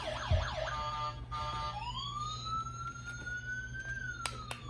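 Electronic siren sound: a fast, repeating up-and-down yelp, then one long wail that rises slowly and falls away near the end. A low thump comes just after the start and a few sharp clicks near the end.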